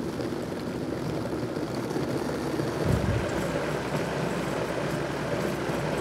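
Vitamix blender motor running steadily, blending diced mango with orange and carrot juice. There is a short deeper surge about three seconds in.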